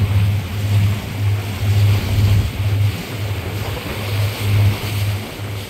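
Boat motor running under way: a low hum that swells and fades every half second or so, with a steady rush of water and wind.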